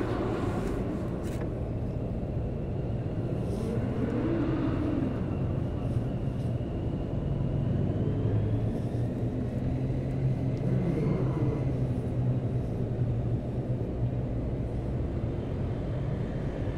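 Steady rumble of motor traffic with a droning engine note. One engine's pitch rises and falls about four to five seconds in, as a vehicle speeds up and passes.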